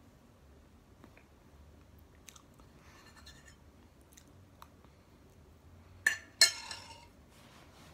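Quiet chewing of soft sponge cake, then a metal fork strikes a ceramic plate twice in quick succession about six seconds in, two sharp ringing clinks that are the loudest sounds.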